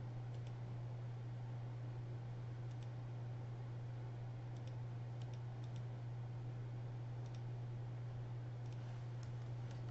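A few faint, scattered computer mouse clicks over a steady low electrical hum.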